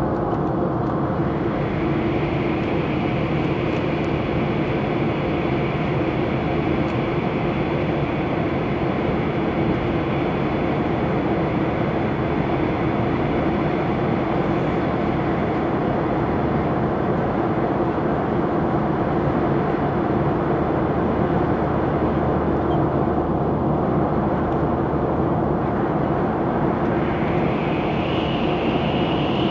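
Steady cabin noise inside a Boeing 737 in flight: the jet engines' drone and rushing airflow past the fuselage, unbroken, with the hiss growing a little brighter near the end.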